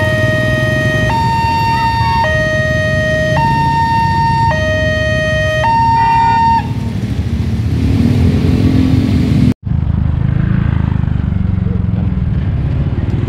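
Electronic two-tone level-crossing alarm from the Wantech crossing's loudspeakers, switching between a low and a higher tone about once a second and stopping about six and a half seconds in. Motorcycle and car engine rumble runs underneath.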